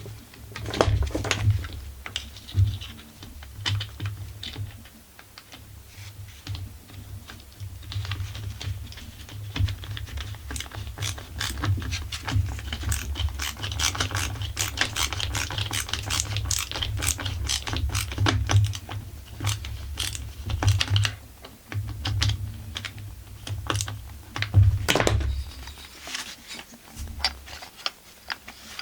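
Screws being driven in to fasten the air intake onto a Husqvarna 45 chainsaw engine, with dense irregular clicking and rattling of the tool and small metal parts, and a low handling rumble.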